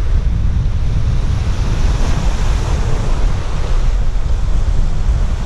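Ocean surf breaking and washing up the beach, with strong wind buffeting the microphone.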